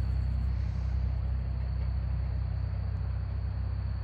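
Big diesel engine running steadily as a low, even drone, sounding like a bulldozer.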